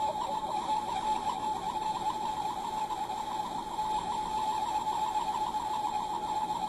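Replica Star Trek original-series tricorder's add-on sound module playing a steady, rapidly pulsing electronic tone, one of the prop's scanning sound effects.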